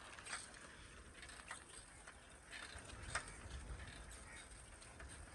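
Quiet outdoor ambience: a low wind rumble on the microphone with a few faint, scattered clicks.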